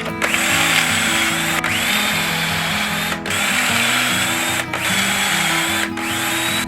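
Power drill running in about five trigger pulls with brief breaks between them, its whine rising to speed at the start of each run, over background music.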